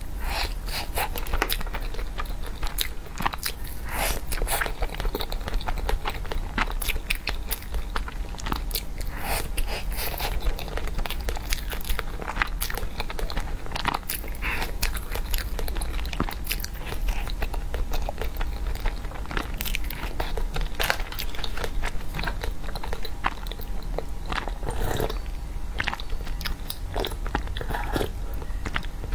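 Close-miked eating: a person biting and chewing a soft tiger skin cake roll, with many small wet mouth clicks and smacks. Near the end, a sip from a cup.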